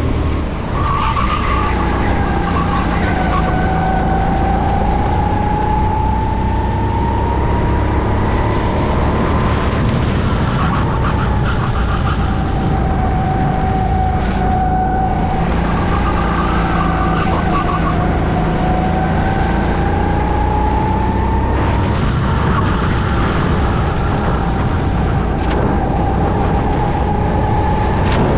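Onboard sound of a racing kart's engine at race pace, its pitch climbing slowly as it accelerates and dropping as it slows, over and over through the lap, over a steady low rumble. At times a second kart's engine is heard alongside it.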